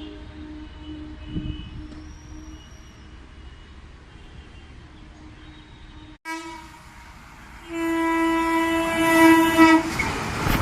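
Indian Railways electric locomotive horn: faint horn notes at first, then after a sudden cut a short toot and a loud horn blast of about two seconds, followed by the rushing noise of the approaching train.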